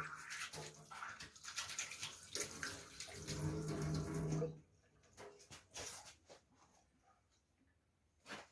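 Water running from a tap for about four and a half seconds with a low steady hum in it, then shut off abruptly; a few light clicks and knocks follow.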